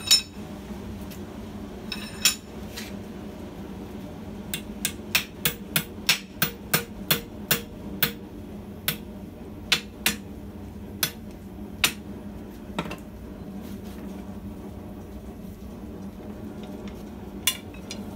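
Hand hammer striking a red-hot steel bar clamped in a vise, bending the punched end over with sharp metallic blows. A few strikes come first, then a quick run of about three blows a second for several seconds, then slower, spaced blows, with one last strike near the end. A steady low hum runs underneath.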